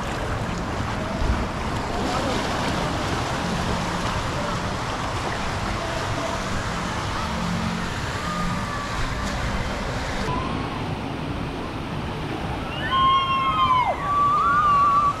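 Rushing water and wind noise on the microphone during a water slide ride, a steady hiss. Near the end, a few rising and falling calls from people's voices come over the splashing.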